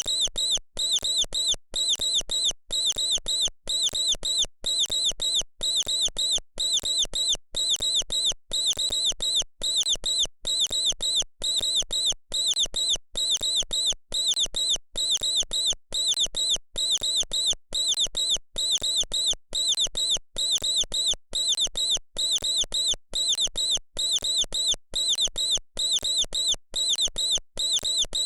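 Mouse squeaking: short high-pitched squeaks in quick bursts, repeating evenly at about three bursts every two seconds.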